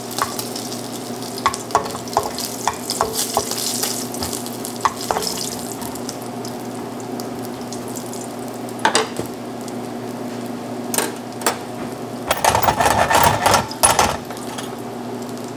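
Guanciale gently sizzling as its fat renders in a stainless steel pan over a low gas flame. A spatula scrapes and taps the pan with sharp clicks in the first few seconds. There is a louder burst of clattering about twelve to fourteen seconds in.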